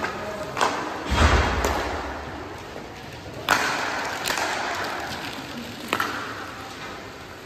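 Hockey game play: a string of sharp knocks and thuds that echo in a large rink, with a heavy thud about a second in and a loud crack about three and a half seconds in.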